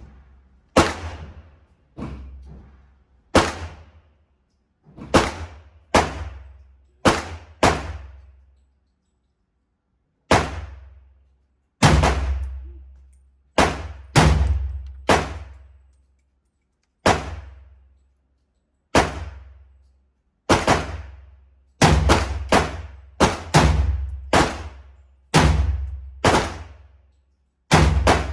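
A 7.62x39 AR-15 pistol firing semi-automatic: about two dozen single shots at uneven spacing, each with a short ringing decay, with some quick strings of shots a fraction of a second apart in the second half.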